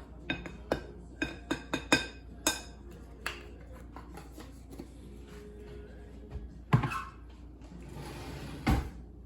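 A utensil stirring flour in a dish, clicking against its sides about three times a second for the first few seconds. Later come two louder knocks.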